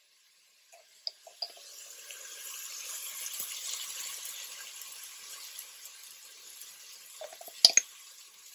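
Seitan and chopped onions sizzling in oil in an enameled Dutch oven. The hiss fades in about a second in, swells, then eases off, with a few light clicks early and one sharp clink near the end.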